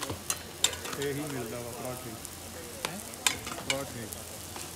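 Oil sizzling steadily as aloo parathas fry on a flat griddle, with a few sharp slaps as the dough is handled and pressed onto it, twice near the start and twice around three seconds in.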